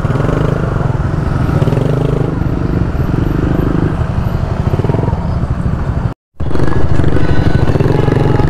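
Motorcycle engine running steadily as the bike rolls slowly, heard from on board the bike, with a low rumble throughout. The sound drops out completely for a moment about six seconds in.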